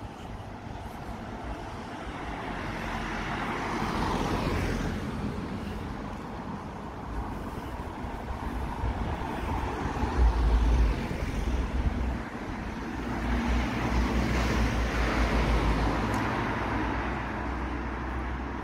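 Road traffic: cars driving past on a city street, one swelling past about four seconds in and another around fifteen seconds, with low rumble on the microphone in between.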